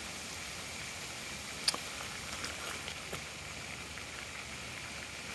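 Steady hiss of floodwater running over the ground, with a few faint clicks, the sharpest about a second and a half in.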